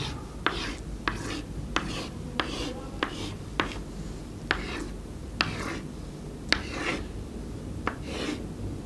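Chalk scratching on a blackboard in a series of short, quick strokes, about one or two a second, as diagonal hatch lines are drawn.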